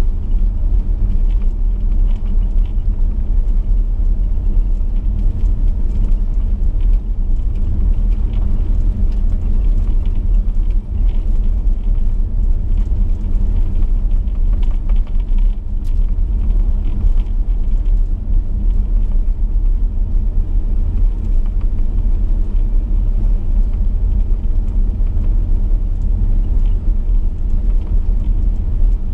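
Chevrolet V8 car cruising on a gravel road: a steady low rumble of engine and tyres on gravel, with occasional faint ticks.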